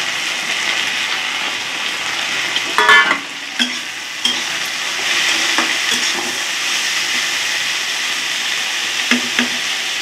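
Chopped okra and sliced onion sizzling in hot oil in a kadhai, stirred with a spatula that scrapes and knocks against the pan several times, with a louder clatter about three seconds in.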